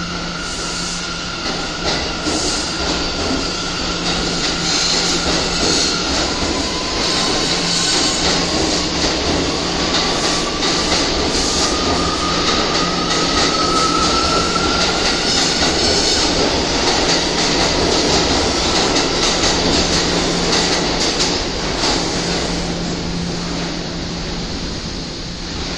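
Subway train passing on the neighbouring track, heard from inside a standing R211A car: a continuous rumble and clatter of wheels on rail that grows louder through the middle, with a wheel squeal rising in pitch. Under it runs a steady low hum.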